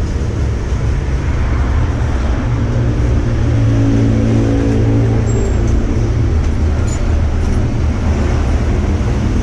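Steady low rumble of motor traffic, with one engine growing louder and then fading around the middle.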